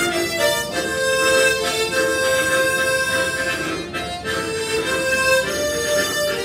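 Harmonica ensemble playing a tune together in several parts, holding long notes that change from one chord to the next.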